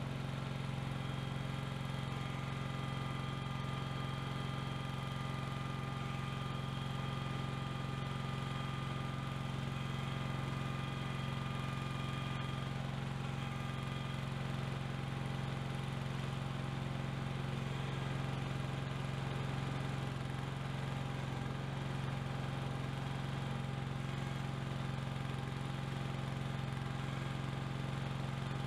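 Cub Cadet garden tractor's engine running steadily, a constant low drone.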